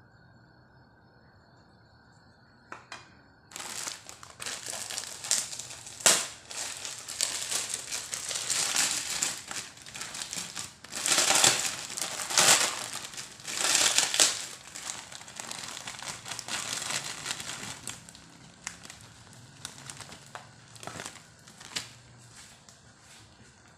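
Crinkling and crunching of chicharon (pork cracklings) being crushed and dropped into the pan. The sound comes in irregular bursts starting a few seconds in, is loudest in the middle, and thins to occasional crackles after about eighteen seconds.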